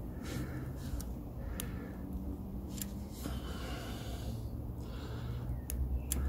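A few small sharp metallic clicks as a bicycle chain and its slotted lock link are worked by hand, with a person's breathing in the background.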